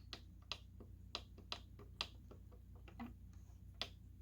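Light, irregular plastic clicks from the buttons and switches of a Realistic Chronomatic 260 clock radio being pressed in quick succession, about three or four a second, over a faint steady low hum.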